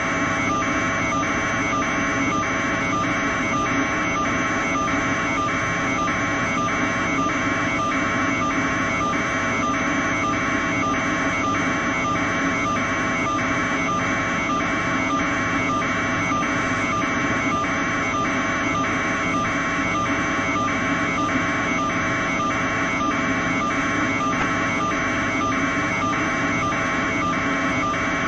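A building alarm beeping steadily about twice a second, over the constant roar of hurricane-force wind.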